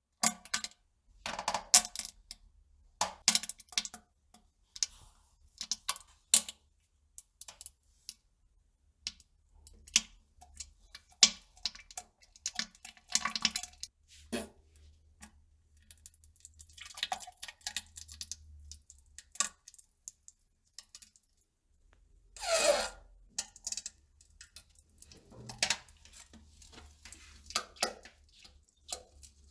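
Toilet-bowl sounds from someone defecating: dozens of short, irregular drips, clicks and small plops. About 22 seconds in there is one longer noisy burst.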